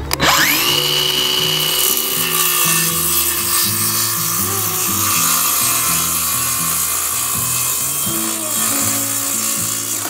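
Craftsman 20V cordless circular saw spinning up with a sharp rising whine, then cutting steadily through a sheet of oriented strand board. It stops near the end.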